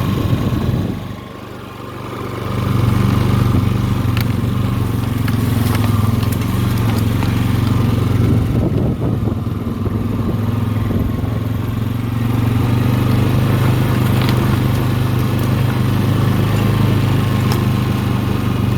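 Four-wheeler (ATV) engine running while riding, its note dropping away briefly about a second in and then rising back to a steady drone, with scattered light clicks.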